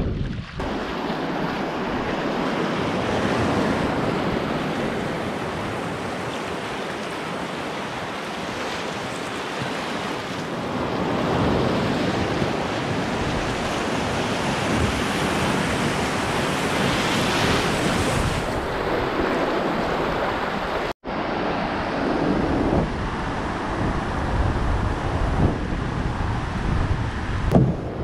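Rushing whitewater of river rapids around a moving canoe, a loud, steady churning rush with wind buffeting the microphone. It cuts off for an instant about three-quarters of the way through, then carries on.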